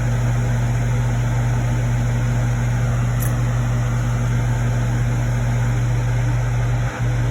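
Hot air rework station blowing steadily, its fan giving a constant low hum with a hiss of air, briefly dropping out near the end.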